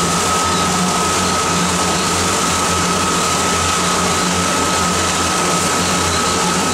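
Steady drone of a tour boat's engine and propeller heard from the stern, with a low hum, a thin steady whine above it and the hiss of the churning wake.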